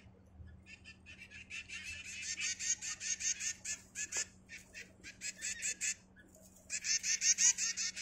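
Nestling birds calling to beg while being hand-fed from a syringe: rapid runs of high, repeated chirps, several a second, with a short break about six seconds in before a louder run.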